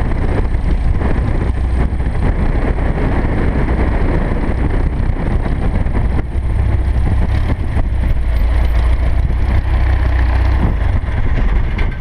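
Bearhawk light aircraft's piston engine and propeller running at low power while the plane taxis on grass, a steady loud drone.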